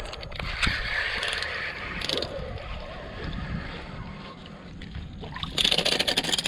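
A hooked speckled trout being landed at the side of a small boat: water splashing and knocks against the hull, ending in a burst of rapid thrashing.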